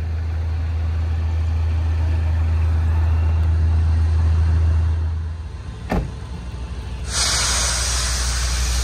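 Engine idling with a steady low hum. About six seconds in, a car door shuts with a single thud, and a steady hiss comes in a second later.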